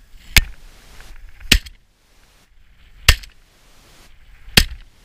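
Four shotgun shots, spaced about a second and a half apart, fired at flushing quail.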